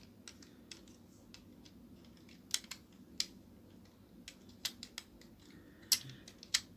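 Hard plastic pieces of a 3D puzzle model car clicking and tapping against each other as they are handled and pressed into place: a string of irregular light clicks, the sharpest in the second half.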